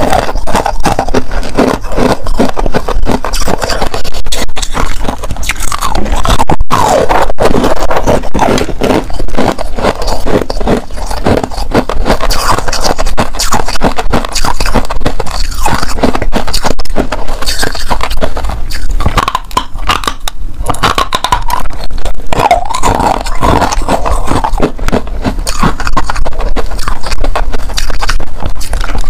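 A person biting and chewing chunks of frozen coloured frost ice, with loud crunching and cracking that does not let up.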